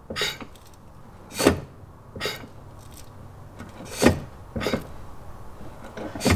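Brake pedal of an NC Miata being pressed repeatedly to test the brake master cylinder for flex: about half a dozen short clunks from the pedal and brake booster, irregularly spaced.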